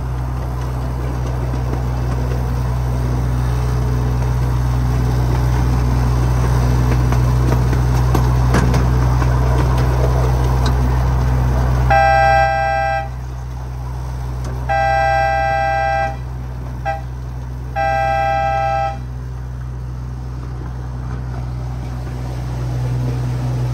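Miniature ride-on train running with a steady low drone. About halfway through, its two-note horn blows four times, long, long, short, long: the railroad grade-crossing signal.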